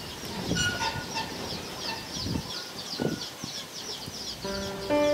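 Birds chirping in a rapid run of high, falling notes, about four a second. Music begins near the end.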